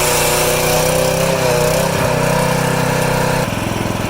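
A small engine-driven machine running steadily with a wavering whine. About three and a half seconds in it cuts abruptly to a lower, evenly pulsing engine note.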